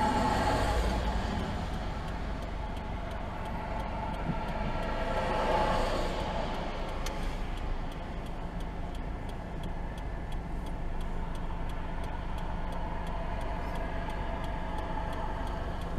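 2018 Subaru Forester's flat-four idling, heard from inside the cabin, with passing traffic swelling and fading twice, near the start and about five seconds in. From about seven seconds on, a steady tick, like the turn-signal relay clicking while the car waits to pull out.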